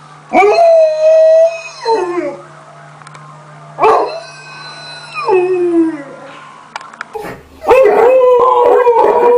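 Alaskan Malamute howling twice, each howl holding one pitch and then dropping away at the end. About seven seconds in, a husky takes over with a louder, longer howl that wavers up and down.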